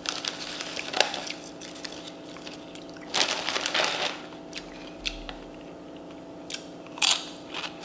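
Crinkly Doritos chip bag rustling as a hand rummages in it, twice, then a crisp crunch as a tortilla chip is bitten near the end.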